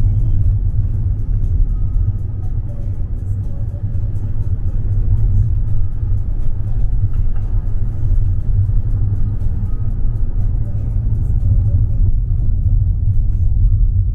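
Steady low road rumble of a moving taxi, heard from inside the cabin.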